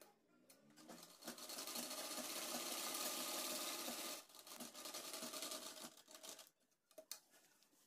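Sewing machine stitching a seam through fabric: it runs steadily for about three seconds, pauses briefly, runs again and stops about six and a half seconds in, followed by a few light clicks.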